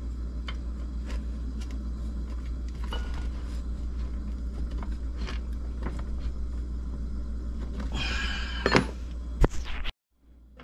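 Hand-tool work on a chainsaw's metal housing while loosening bolts with a wrench: faint clicks and light knocks over a steady low hum, a short scraping rattle about eight seconds in and a couple of sharp knocks just after, then the sound cuts off abruptly.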